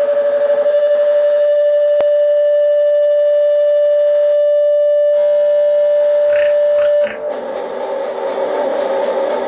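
Distorted electric guitar holding one long, steady sustained note for about seven seconds, then breaking into fast, even distorted strumming at about five strokes a second.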